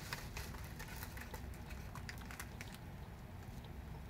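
Crinkling and rustling of a padded paper mailer being opened and its contents handled: a scatter of small crackles that thins out after about two and a half seconds, over a low steady hum.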